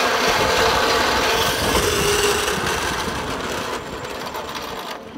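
Zipline trolley pulleys rolling along the steel cable: a loud rushing whir with a steady hum, dying down after about three seconds as the riders slow to a stop at the end of the line.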